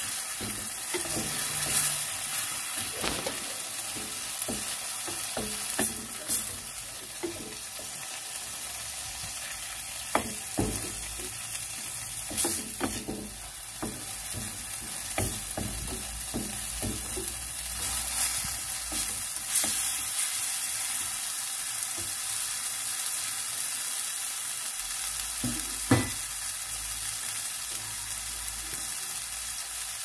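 Tomato, garlic and onion sauce sizzling steadily in a glazed clay tagine pan, with a wooden spatula stirring it and knocking and scraping against the pan now and then; one sharper knock comes near the end.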